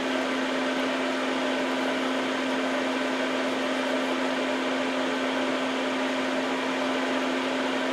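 Steady fan-like motor hum with a constant low tone over an even hiss.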